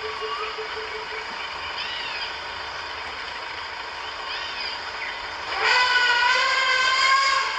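Wild bush ambience with short chirping bird calls. About two-thirds of the way through, a loud, high, whistle-like call holds steady for about two seconds.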